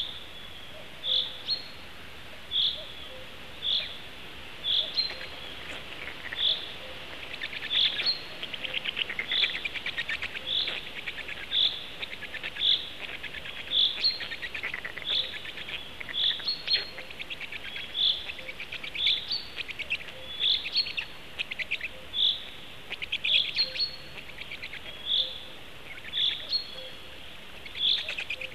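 Woodland songbirds singing: a short high-pitched note repeated about every second or so, joined from about 8 seconds in by a fast rattling trill.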